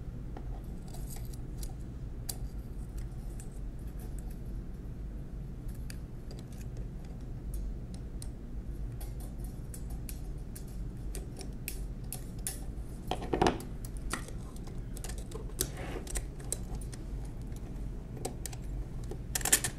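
Small metal parts clicking and clinking as keyboard bars are worked into a Monroe mechanical calculator's metal keyboard frame with needle-nose pliers. There are a few louder clinks in the second half, over a steady low hum.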